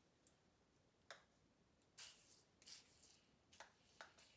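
Several faint, short hisses from an aerosol can of CLP gun cleaner sprayed in brief bursts, with a light click of handling about a second in.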